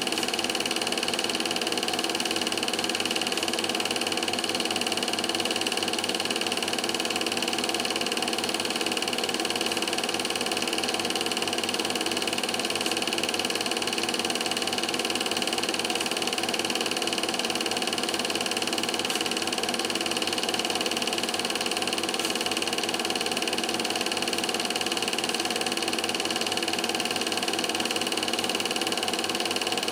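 Film projector running: a steady mechanical whir and hum that never changes.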